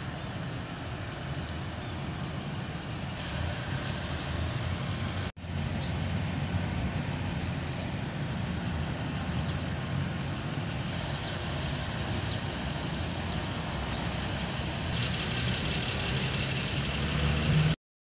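Steady low rumble of an idling vehicle engine, with a faint steady high tone above it. The sound drops out for a moment about five seconds in and again near the end.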